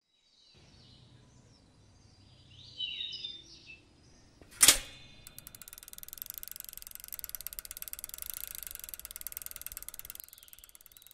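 A few birds chirping, then one sharp metallic ding with a short ring about four and a half seconds in. After it comes the fast, even ticking of a bicycle freewheel, which stops about ten seconds in.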